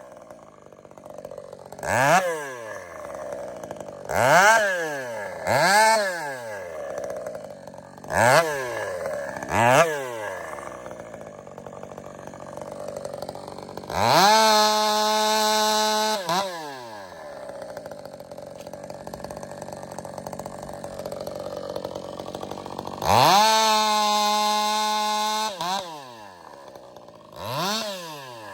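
Ported Husqvarna 562XP two-stroke chainsaw with an expansion pipe, idling between sharp throttle blips that rise and fall quickly. Twice it is held at full throttle at a steady high pitch for about two seconds.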